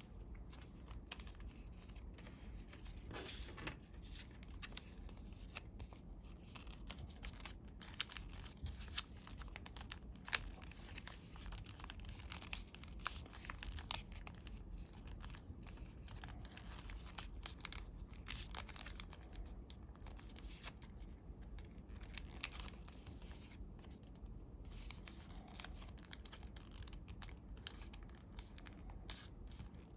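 Coloured origami paper being handled, folded and creased by hand: an irregular run of rustling and crinkling with scattered brief crackles.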